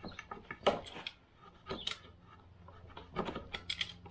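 Utility knife paring and scraping excess wood out of a notch cut in a wooden roof rafter, in short scrapes and clicks that come in three bunches.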